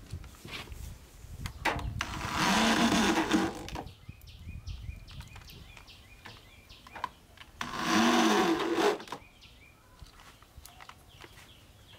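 Cordless drill/driver driving screws through a metal mesh grille into a subwoofer cabinet, in two short runs about two seconds in and about eight seconds in. In each run the motor's pitch rises and then falls back.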